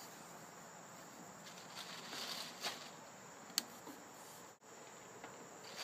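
Bell peppers being set down by hand on the metal grates of a gas grill, with one sharp click about three and a half seconds in and a few soft taps, over a faint steady outdoor hiss.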